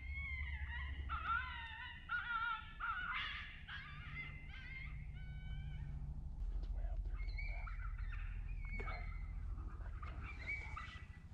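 Coyote predator call sounding a run of short, wavering, high-pitched animal-like cries, meant to lure coyotes in. The cries come thick and fast for about the first six seconds, then thin out to a few scattered ones, over a low steady rumble.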